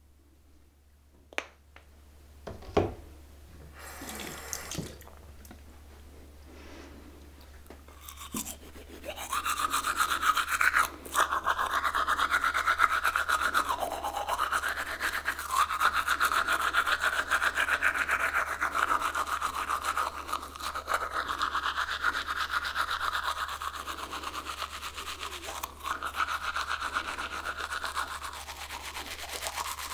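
Toothbrush scrubbing teeth with rapid back-and-forth strokes, its tone rising and falling as the brush moves around the mouth. The brushing starts about nine seconds in, after a few faint clicks and taps.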